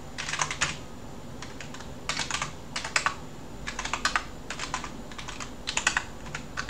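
Computer keyboard typing: quick runs of keystrokes in short bursts, with brief pauses between them.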